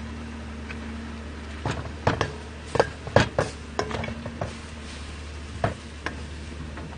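A metal utensil knocking and scraping against a metal pot while stir-fried pork is stirred in it. The sharp clanks come in a cluster a couple of seconds in, with one more near the end, over a steady low hum.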